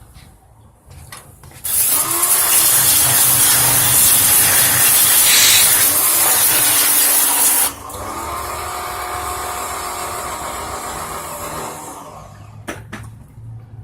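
Pressure washer running and spraying a water jet onto an engine: a loud hiss with the pump motor humming under it for about six seconds, then a quieter spray for about four seconds more before it stops.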